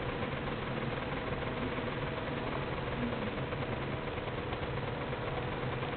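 A steady, even mechanical hum with faint steady tones in it.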